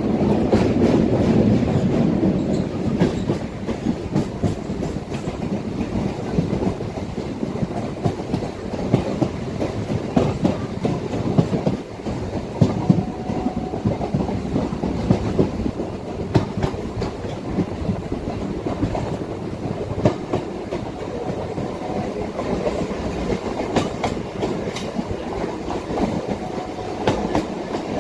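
Electric multiple unit (EMU) local train running, heard from on board: a steady rumble with the wheels clicking over the rail joints. It is a little louder in the first few seconds.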